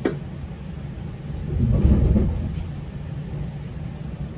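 GO Transit commuter train heard from inside the coach: a steady low rumble, a short click at the start, and a heavier low rumble that swells and fades near the middle.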